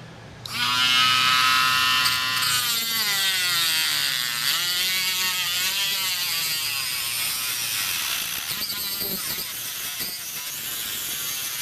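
Dremel rotary tool spinning up at high speed and cutting into a sealed metal ammo can. Its high whine starts about half a second in, then sags and wavers in pitch in the middle as the bit bites into the metal.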